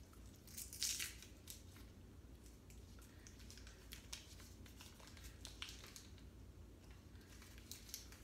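Butter wrapper being peeled off and crinkled by hand: faint, scattered paper crackles, the loudest about a second in.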